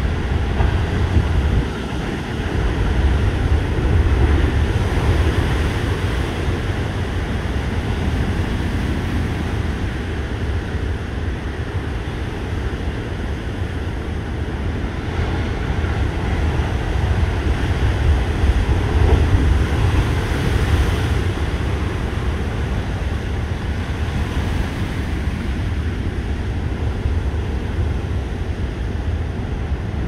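Heavy surf pounding the shore, swelling and easing as the waves break, over a low rumble of strong wind buffeting the microphone. The sea is running high ahead of an approaching typhoon.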